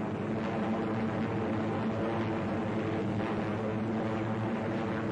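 Steady drone of propeller-driven piston aircraft engines in flight.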